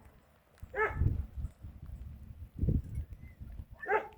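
A dog barking, two short barks about a second in and near the end, with low thuds in between.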